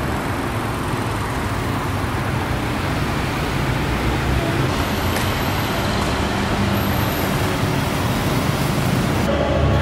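Busy city street traffic, cars and motorbikes passing below with a steady rumble of engines and tyres.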